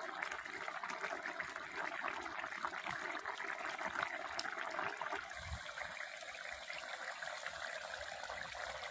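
Thick fish curry with wood apple and mustard paste boiling hard in a metal wok, a steady bubbling and popping.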